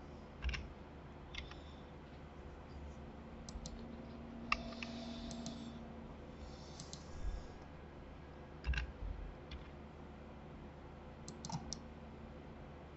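Faint, scattered clicks of a computer keyboard and mouse: single clicks and short clusters of a few taps, with pauses between them.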